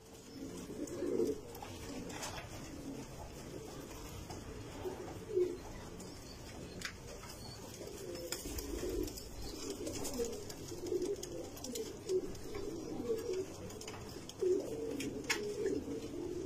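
Many young red domestic pigeons cooing together, low overlapping coos that go on without a break, with a few sharp clicks among them.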